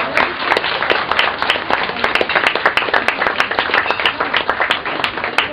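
Audience applauding, many hands clapping together in a steady round of applause.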